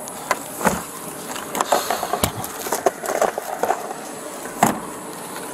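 Handling noise: an irregular run of sharp clicks and knocks with rustling in between, loudest in the middle and with one strong knock near the end.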